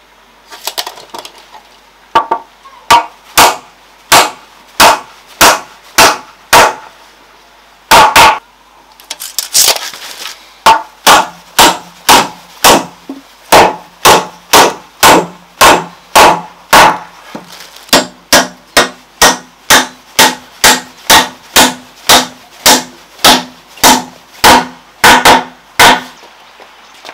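Hammer driving nails into wooden planks: a long run of sharp blows, about two a second, with a couple of short pauses.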